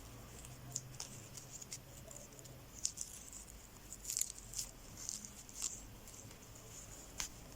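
Hands handling and folding a towel: soft cloth rustling with scattered light ticks and taps, busiest around the middle, with one sharp tick near the end.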